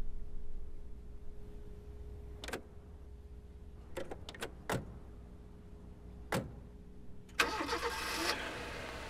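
A few scattered knocks and clunks over a faint steady hum, then a car engine cranks and starts about seven and a half seconds in and keeps running.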